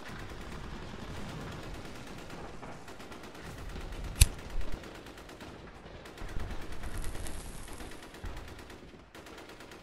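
Battle sound effects: distant gunfire rumbling in bursts, with one sharp click about four seconds in that is the loudest sound.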